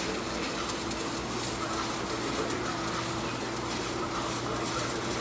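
Steady crackling sizzle of a slag-leaving arc weld being run on a steel plate, over a steady low hum.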